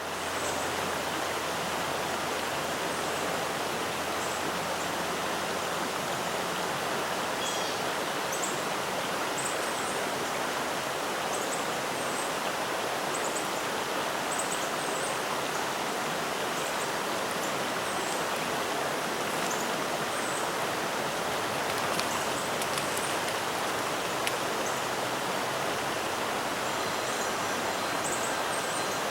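Steady rush of flowing stream water, with faint high chirps now and then.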